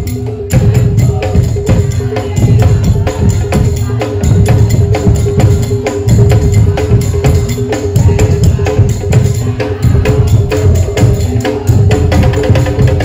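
Madurese daul (tong-tong) percussion ensemble playing: deep bass drums beating in a steady rhythm under rapid sharp percussive hits, with a held pitched note running beneath.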